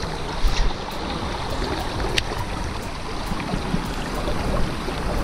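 Steady rushing noise of river water flowing over rocks, with wind rumbling on the microphone. A few short sharp clicks and knocks from handling the rod and reel, about half a second in and again after two seconds.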